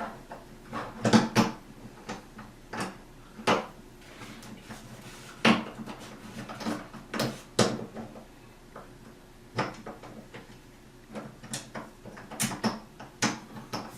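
Door handle hardware being handled and fitted onto a door: irregular clicks and knocks of small parts, about a dozen spread out with short pauses between them.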